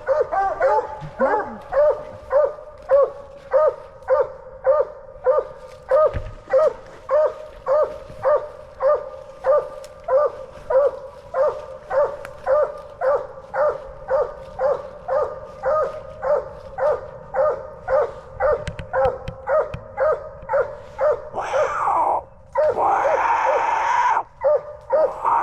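Coonhound barking steadily in an even chop, close to two barks a second, the bark of a hound that has its quarry treed. Near the end a rushing, rustling noise rises over it for a few seconds.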